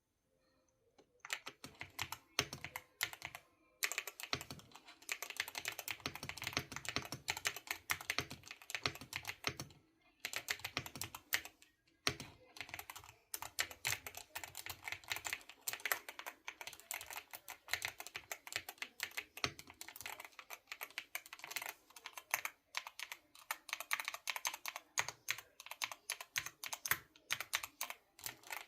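Fast, continuous typing on a Magegee Light 100 mechanical keyboard, its keys clicking rapidly. The typing starts about a second in and breaks off briefly a few times.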